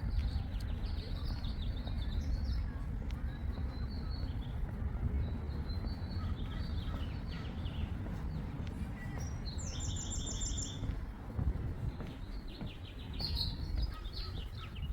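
Small birds chirping, with a quick trilled call about ten seconds in and another shortly before the end, over a steady low rumble.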